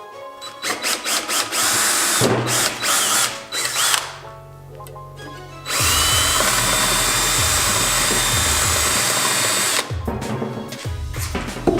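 Handheld power drill run in a series of short bursts, then held on steadily for about four seconds before stopping, over background music.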